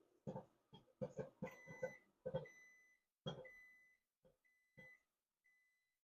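Popcorn kernels popping in a microwave popcorn maker, a string of irregular sharp pops. About a second and a half in, the microwave starts beeping, about six short beeps on one high pitch.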